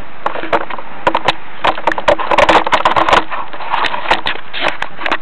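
Rattling and crackling picked up by a mini camera mounted on an RC car: rough noise under many irregular sharp clicks and knocks, growing busier about a second in.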